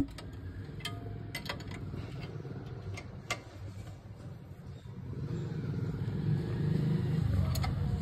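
Sharp metallic clicks and taps of an open-ended spanner on the brake caliper bolts, the loudest a hard clack right at the start, over a vehicle engine running steadily that grows louder about five seconds in.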